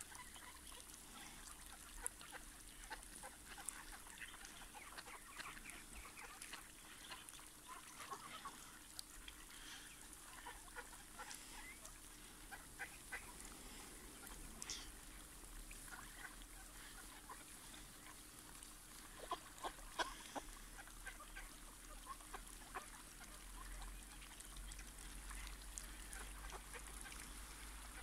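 A flock of mallards on open water giving faint, scattered quacks and low calls, with a few louder calls about twenty seconds in.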